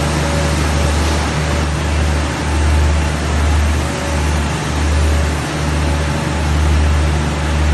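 Extrusion laminating machine running, with a steady mechanical whir over a loud low hum that swells and eases every second or so.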